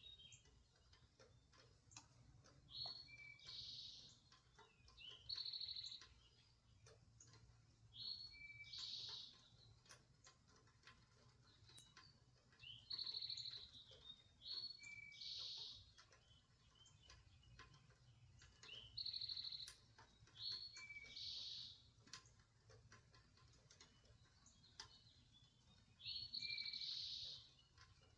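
A bird calling over and over: a short high two-part call repeated every few seconds, faint against a low hum, with scattered soft ticks between calls.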